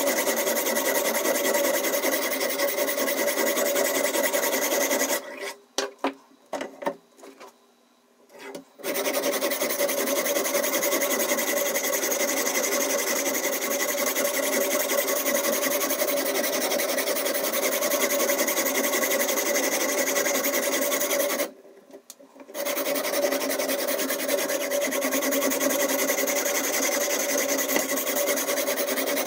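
Diamond whetstone on a Ruixin Pro RX 008 guided sharpener being stroked along a steak knife's edge: a continuous scraping rasp of abrasive on steel. It stops for a few seconds about five seconds in, with a few faint sounds during the gap, and stops again briefly later on.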